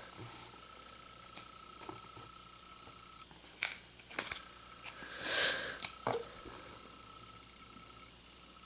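Plastic-sleeved trading cards being handled: a few light clicks and taps as they are set down and picked up from a table, and a soft plastic swish of a card sliding about five seconds in.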